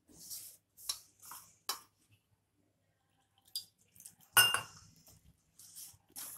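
A hand works wheat flour and water in a stainless steel bowl, making short rubbing and scraping strokes against the steel. A sharp metallic clink of the bowl rings out a little over four seconds in. This is the stage of mixing the flour with water before it comes together as dough.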